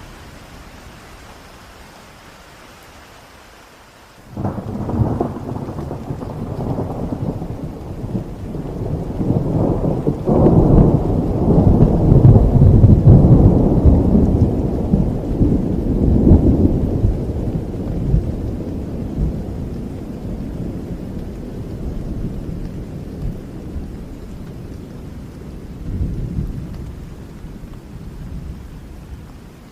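Heavy rain falling steadily, then a clap of thunder breaks in about four seconds in. The deep rumble builds to its loudest a few seconds later and slowly dies away, swelling briefly once more near the end.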